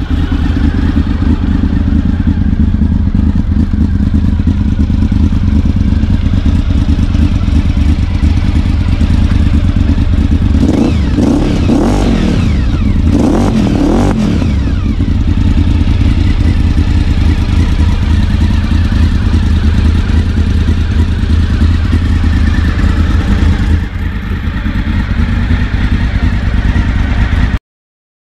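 Honda VFR750's V4 engine idling through a Delkevic slip-on silencer, revved twice about halfway through, each rev rising and falling back to idle. The sound cuts off suddenly near the end.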